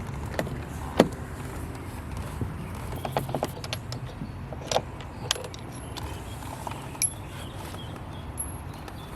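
Scattered light clicks and clinks of BMW door-panel parts being handled, the loudest about a second in, over a steady low hum.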